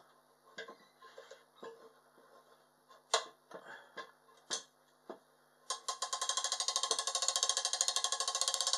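Large snapper fishing reel being handled with a few light knocks, then its ratchet clicking rapidly and evenly from about six seconds in as the spool is spun. The ratchet is working.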